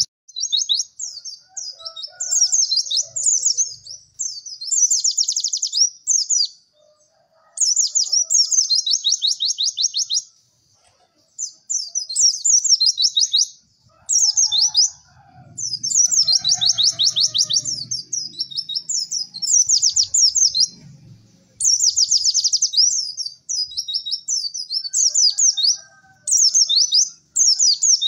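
White-eye (pleci) song: rapid, high trilled phrases, each lasting one to three seconds, repeated with short pauses between them.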